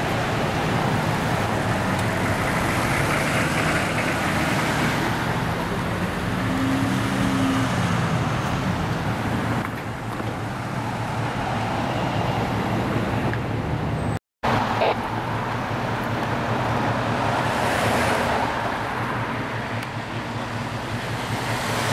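Road traffic: cars and SUVs passing close by one after another, the tyre and engine noise swelling with each pass. The sound cuts out completely for a moment about fourteen seconds in.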